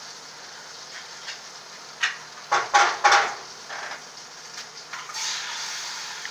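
Eggs being cracked on the edge of a dish: a few sharp taps and clinks of shell and dishware about two to three seconds in, followed by a soft hiss.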